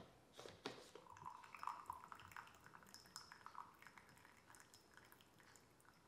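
A few sharp plastic clicks as the lid and mesh infuser of a glass iced-tea maker are lifted. From about a second in, brewed green tea drains from the infuser back into the jug in a quick patter that thins to sparse drips after a few seconds.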